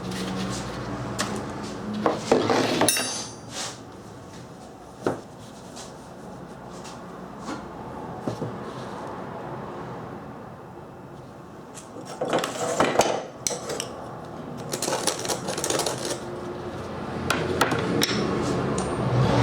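Metal parts of an antique samovar being handled during repair: irregular clinks, knocks and scraping. There is a brief metallic ring about three seconds in, and denser clatter near the middle and toward the end.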